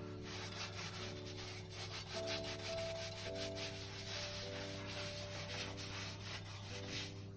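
Hand polishing of a painted label with cleaning paste: steady back-and-forth rubbing strokes. Soft background music with slow-changing chords plays underneath.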